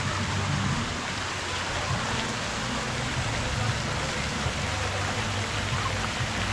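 Water splashing steadily into a pool from fountains, a mushroom fountain's falling curtain and spouts pouring off a play structure, heard as an even rain-like hiss.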